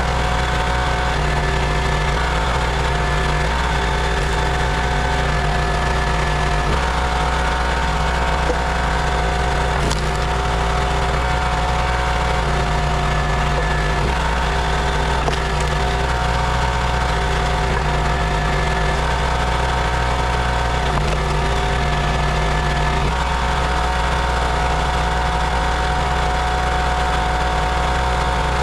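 Small gas engine of a 32-ton log splitter running steadily, its note changing every few seconds as the splitter works through logs.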